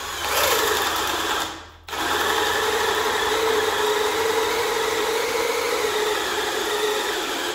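Milwaukee M18 compact brushless drill boring a 1-inch spade bit into a thick wooden block; the motor's pitch drops as the bit bites, it stops briefly about two seconds in, then runs steadily until it stops at the end. The bit has to work a little at first against a knot in the wood.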